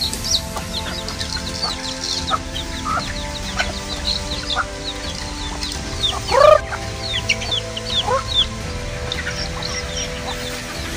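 Free-range chickens clucking and calling, with many short high chirps throughout and one loud rising-and-falling squawk about six and a half seconds in. Soft background music with sustained notes plays underneath.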